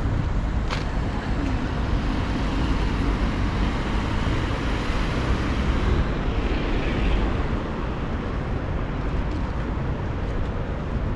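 Steady road-traffic noise in a town street: a continuous wash of car and engine sound with a heavy low rumble, and a short click just under a second in.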